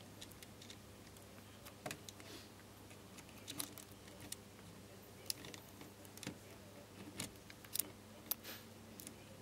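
Faint scattered clicks and light rustling of hands handling insulated hookup wires against plastic contactor housings and terminal blocks, over a low steady hum.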